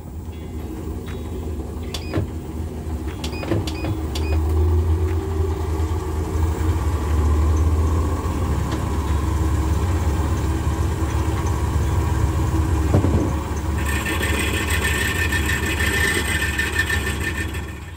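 Homemade belt-driven metal lathe running, with a low, steady hum that builds over the first few seconds, and a few sharp clicks in the first four seconds. About fourteen seconds in, a harsh, hissy scraping joins the hum as the tungsten carbide tipped tool cuts the metal workpiece.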